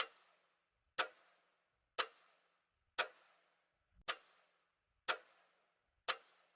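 Clock ticking evenly, one sharp tick a second, each tick fading away in a short ring.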